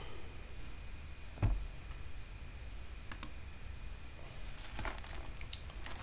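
Scattered light clicks at a computer desk: a soft thump about a second and a half in, a quick pair of clicks near the middle, and a few more toward the end, over faint room hiss.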